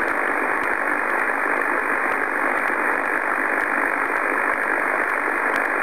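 HF transceiver on the 15-metre amateur band, its speaker giving a steady hiss of band noise with no station on frequency. The hiss is cut off sharply above and below by the receiver's narrow voice filter, which gives it a thin, boxy sound.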